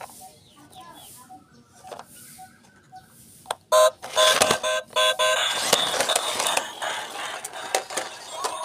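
A loud run of electronic beeping tones about four seconds in, then a steady noisy whirring as a homemade remote-control stunt car with plastic-bottle wheels drives off across concrete.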